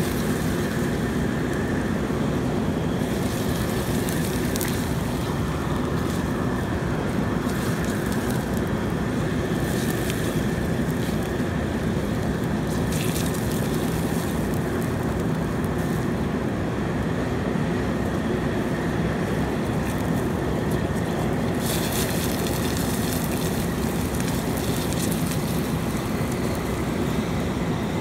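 Turkey-fryer oil fire burning out of the pot: a continuous rushing noise, with a higher hiss that swells for a few seconds at a time.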